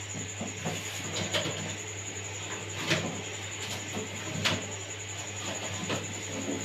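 Sharp plastic clicks and knocks, about one every second and a half, as parts of an RO water purifier are handled during repair, over a steady low hum and a faint high whine.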